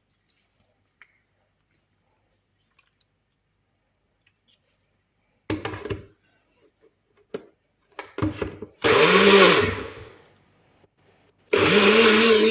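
Blender processing fruit and water: after a few seconds of near silence it is pulsed in a few short bursts, then run for about a second, the motor spinning up and winding down, and near the end it is switched on and runs steadily.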